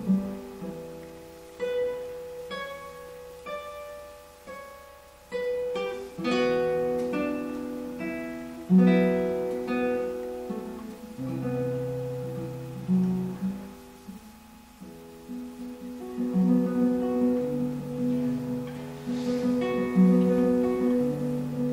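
Solo classical guitar played fingerstyle: single plucked notes and chords, each ringing and dying away over sustained bass notes, at a slow, uneven pace with quieter dips.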